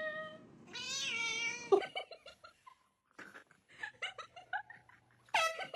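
Cat meowing: a long drawn-out meow, then a wavering one, then a few faint short sounds and a last meow near the end.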